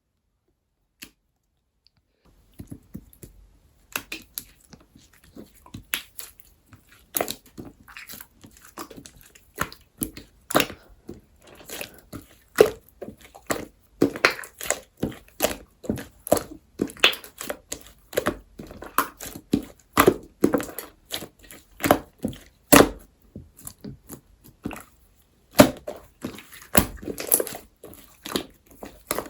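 Clay-mixed slime being squished, pressed and stretched by hand, making many irregular sticky pops and crackles that start about two seconds in.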